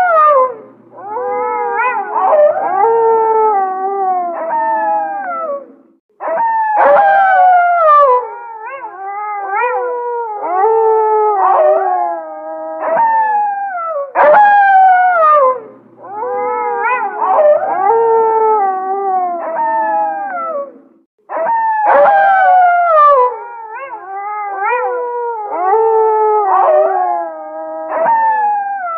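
A chorus of wolves howling: several long howls overlap, each sliding down in pitch. The same stretch of recording repeats about every fifteen seconds, as a loop.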